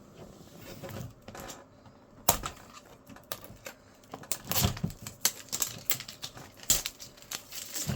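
Plastic toy parts and packaging being handled: irregular sharp clicks and short crinkling rustles, sparse at first and busier from about two seconds in.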